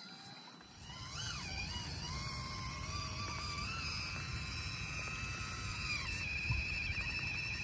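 Small electric motor of an RC crawler truck whining as it drives, its pitch rising and falling with the throttle about a second in, then holding fairly steady with small shifts. A low rumbling noise runs underneath from about half a second in.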